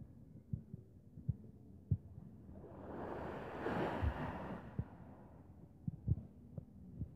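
Irregular low thumps from a handheld camera being carried at walking pace. Wind on the microphone rises into a rush of noise in the middle and dies away again.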